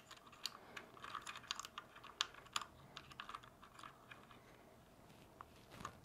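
Faint, irregular plastic clicks and clacks of keycaps being pressed onto the mechanical switches of a GM610 keyboard, the keys clacking as they are pushed down.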